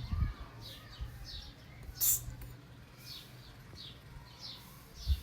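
A small bird chirping: short, high, falling chirps coming several a second in loose groups. A brief hiss cuts in about two seconds in, and a dull thump comes near the end.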